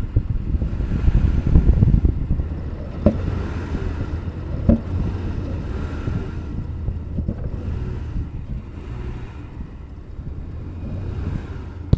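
1996 Jeep Grand Cherokee's 4.0 L inline-six being given gas and running rough, its rumble swelling in the first couple of seconds, with two sharp pops about three and five seconds in: backfiring into the air-intake breather. The owner has a code 11 for the crankshaft position sensor and thinks the sensor could be bad.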